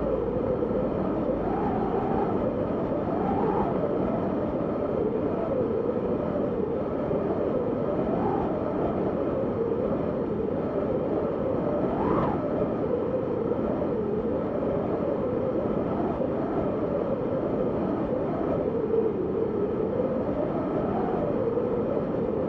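Howling snowstorm wind: a steady rush with a moaning whistle that wavers up and down in pitch, rising briefly to a sharper, higher whine about halfway through.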